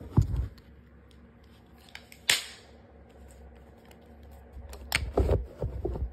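Metallic clicks and clunks of a Kel-Tec Sub-2000 9mm carbine being handled: a knock at the start, one sharp click about two seconds in, then a run of clattering knocks near the end.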